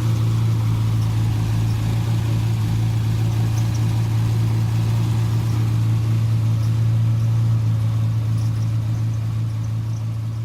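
Rover Mini's A-series four-cylinder engine idling steadily, with a strong low hum; it begins to fade near the end.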